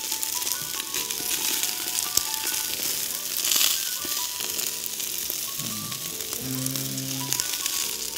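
Jerk chicken sizzling and crackling on a grill over hot charcoal, a steady hiss full of small pops. Music plays underneath.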